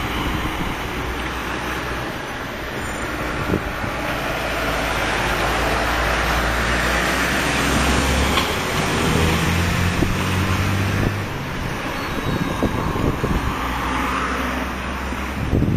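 Street traffic: cars and a light truck driving past with engine noise and tyre rush, louder through the middle as vehicles pass close.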